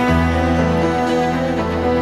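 Background music of long held notes in slow chords, the bass shifting to a new chord about every two seconds.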